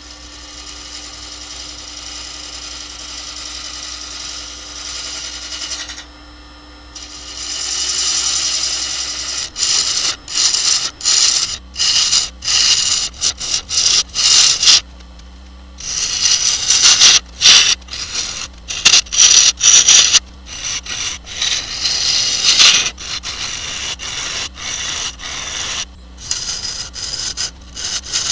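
Turning gouge cutting a spinning maple burl and epoxy bowl blank on a wood lathe, over the lathe's steady hum. The first stretch is a continuous hiss of shavings; from about ten seconds in it breaks into many short cuts, each a second or less, with brief gaps between.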